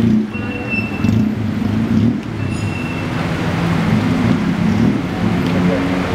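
Busy road traffic close by: cars and motorbikes running past in a steady low engine drone.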